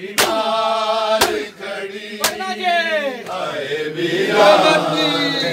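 A male voice chants a noha (mourning lament) while mourners beat their chests in matam, with three sharp hand slaps about a second apart. About three seconds in, a crowd of men's voices takes up the chant.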